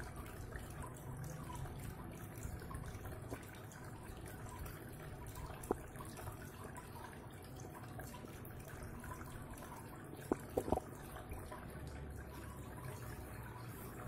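Small tabletop cement waterfall fountain running: thin streams of water trickling from little spouts and dripping into the pots below, a steady faint trickle with a low hum underneath. A few sharp ticks stand out, one about six seconds in and two close together around ten seconds.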